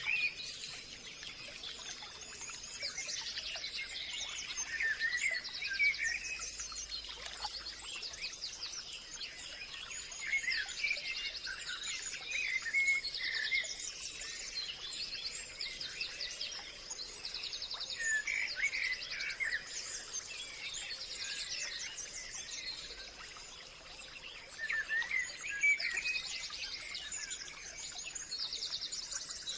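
Several birds chirping and calling over one another, with short chirps and rapid high trills repeating throughout, over a faint steady high-pitched tone.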